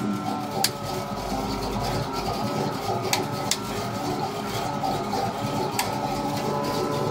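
A 350 cubic-inch small-block Chevy V8 with headers and Thrush dual exhaust idling steadily at about 1,000 rpm, heard from inside the cabin. A few sharp clicks sound over it.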